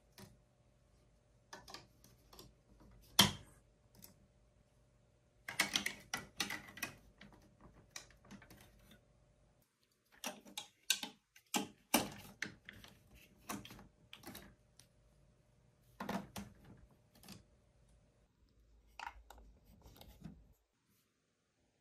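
Large plastic toy building blocks clicking and knocking together as marble-run pieces are handled and pressed into place, in irregular clusters, with one sharp knock about three seconds in. The clicking stops about a second before the end.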